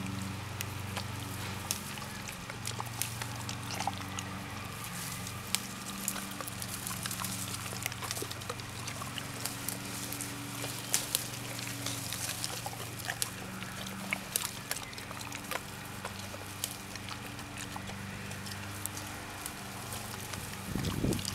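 Rhodesian Ridgebacks picking gooseberries off a thorny bush and chewing them, with many small wet crunching clicks and leaves rustling. A low steady hum runs underneath.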